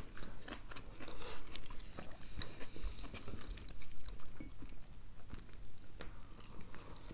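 Close-up chewing of sushi rolls, with many short wet mouth clicks and smacks. Near the end a tempura-fried roll is bitten into.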